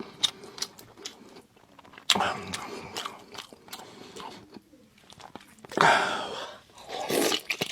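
Close-miked chewing and biting of meat: wet mouth smacks and small clicks, with two louder bursts about two and six seconds in.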